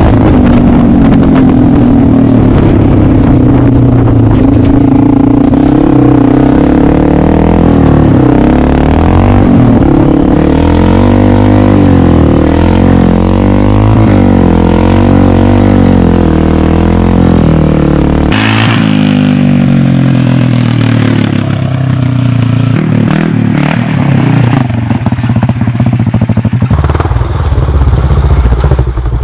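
Motorcycle engine of an off-road go-kart running hard under load, its pitch climbing and falling back over and over as the throttle is worked and gears are changed. The sound changes abruptly about two-thirds of the way through.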